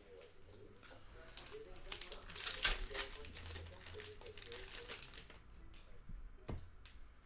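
Crinkling and rustling of trading-card pack wrappers being handled, with a louder crackle about two and a half seconds in and a sharp tap near the end.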